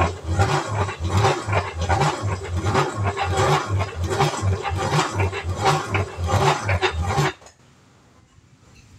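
New hand-cranked metal corn grinder grinding fresh corn kernels into masa: a loud, rough grinding that pulses in a steady rhythm as the crank turns, and stops about seven seconds in. The machine is new, which she gives as the reason it sounds this way.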